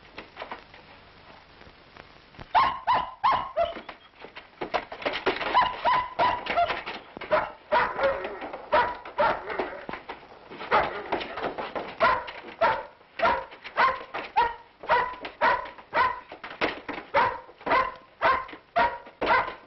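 A large shepherd-type dog barking over and over in quick runs of several barks a second, with short pauses between runs; it starts about two and a half seconds in.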